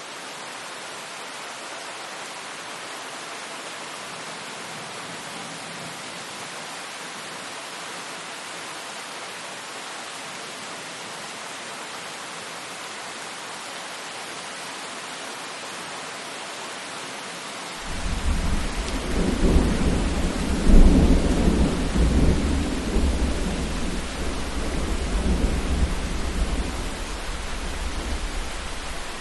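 Steady rainfall, then about two-thirds of the way in a long, deep rumble of thunder swells up over the rain and rolls on to near the end.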